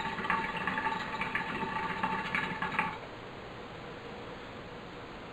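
Hookah water base bubbling as smoke is drawn through it in one long pull on the hose, stopping about three seconds in.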